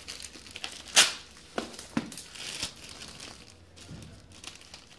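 Cardboard package and paper invoice being handled, rustling and crinkling, with a sharp crackle about a second in and a few smaller crackles just after.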